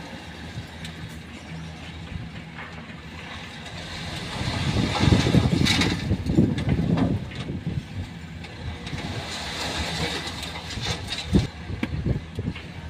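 A dump truck's engine running steadily, growing louder and rougher for a couple of seconds about five seconds in before settling back, with a few knocks later on.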